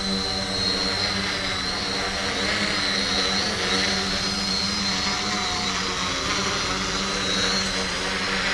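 Electric quadcopter's four motors and propellers running steadily while it hovers low: an even hum with a high whine on top.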